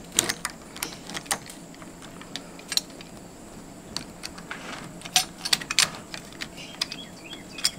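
Scattered sharp metal clicks and light rattles of a door-knob lockset being fitted: the spring latch bolt going into the door edge and the knob being pushed on and turned.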